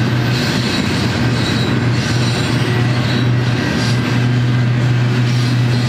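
Double-stack intermodal freight cars rolling past close by, a steady loud rumble of steel wheels on the rails.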